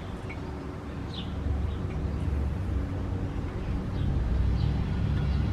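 Steady low outdoor background rumble, with a few faint short high chirps near the start and about a second in.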